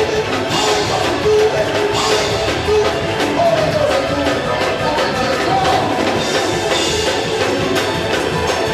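Live church praise music with a drum kit, held pitched notes and a melody that glides up and down.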